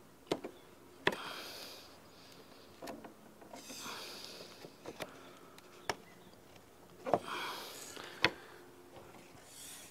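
Hammer tapping wooden Langstroth beehive frame parts together. There are about seven sharp knocks, spaced unevenly a second or two apart.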